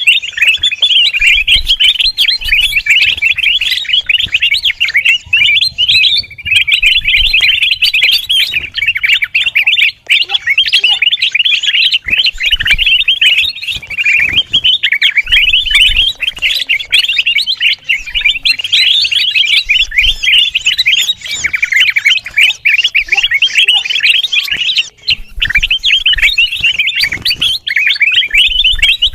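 Kutilang emas (golden bulbul) chattering noisily, a dense stream of rapid high chirps and trills with only brief pauses, as on a bird-lure recording.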